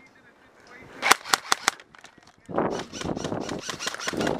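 Airsoft gun firing a quick string of sharp single shots about a second in. It is followed by a rustling, noisy stretch from about halfway through.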